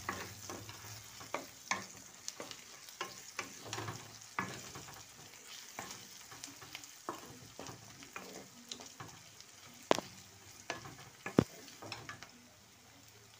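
Spatula stirring onions and ginger paste frying in oil in a kadai, scraping and clinking irregularly against the pan over a steady sizzle. Two sharper knocks come near the end, and the sizzle drops just before it ends.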